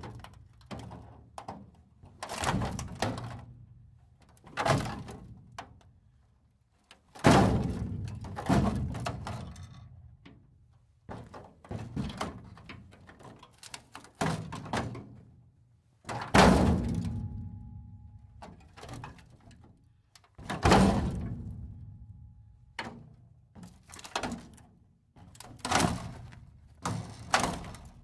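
Metal breaking apart: a series of about fifteen heavy metal crashes and clanks, each dying away in a ringing decay. The two loudest hits come about 7 and 16 seconds in.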